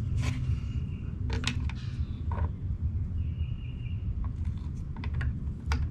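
Scattered sharp clicks and taps from handling the mower's oil dipstick and filler, about eight in all, over a steady low rumble.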